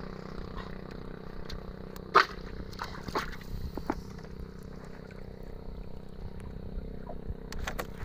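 Steady drone of a running boat engine, with a few sharp knocks, the loudest about two seconds in, another a second later and more near the end.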